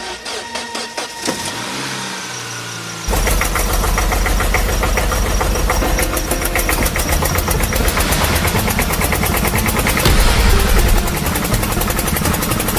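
An engine starts abruptly about three seconds in and then runs steadily with a fast, even pulse and a deep rumble. Before that there are lighter rhythmic clicks.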